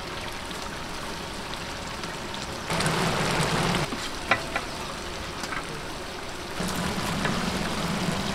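Tomato-and-onion masala sizzling steadily in a large cooking pot. The hiss swells briefly twice, and a couple of light knocks come near the middle.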